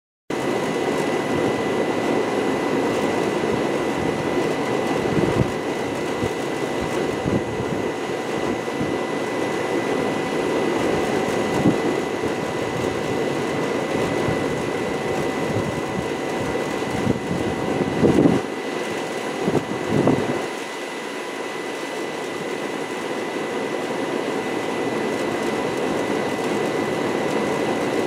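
Long Island Rail Road diesel train led by a DM30AC locomotive running: a steady rumble with a thin high whine over it, and a few louder knocks about two-thirds of the way through.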